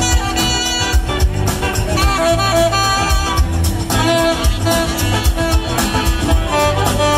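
A live band with drums, bass, electric guitars and a saxophone, the saxophone playing a lead line over the band.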